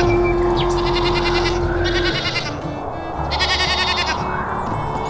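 Sheep bleating, two long wavering bleats with a third beginning near the end, over background music with a held tone that stops about two seconds in and a low bass line.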